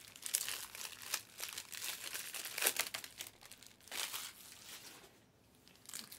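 Irregular crinkling and rustling of handled packaging, with a brief quieter gap near the end.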